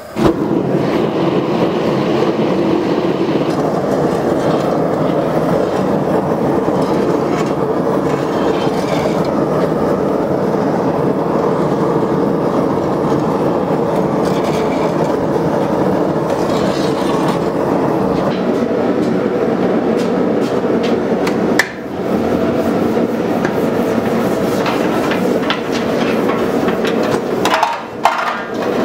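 Gas forge burner running with a loud, steady roar while the blade is heated for re-heat-treating. The roar breaks briefly about 22 seconds in and then goes on, with a scatter of light metallic clicks near the end.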